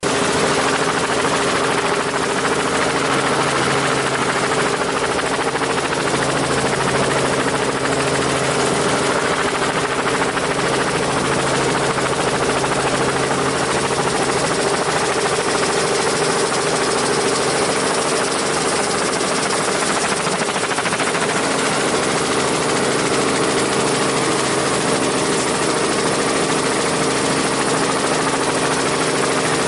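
Helicopter running steadily: a dense engine and rotor noise with a steady low hum, its level even throughout.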